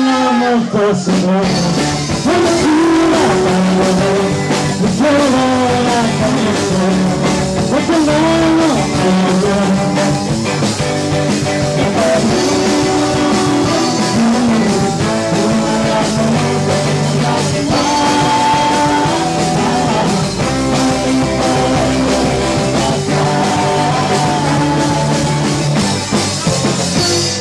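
Live band playing rock and roll, with trombone, electric guitar and a singer.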